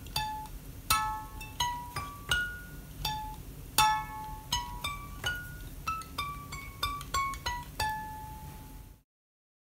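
3D-printed eight-note diatonic harp strung with a single metal guitar string, plucked by finger: a tune of about twenty bright notes, pitches stepping up and down the scale, each ringing briefly. The sound cuts off suddenly about nine seconds in.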